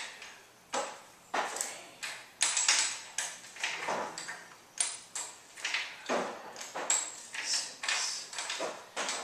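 Steel hex key clicking and clinking against a motorcycle chain-adjuster bolt as it is turned and refitted turn after turn: sharp metallic clicks with a short ring, about two a second.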